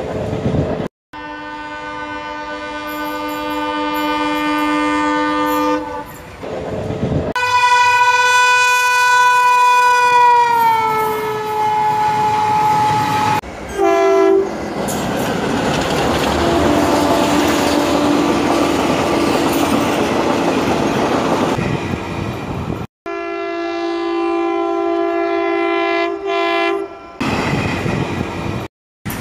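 Recorded sound of a real train dubbed in: several long horn blasts, one sliding down in pitch as the train passes, and a stretch of wheels rolling and clattering over rail joints in the middle. The segments are spliced with abrupt cuts.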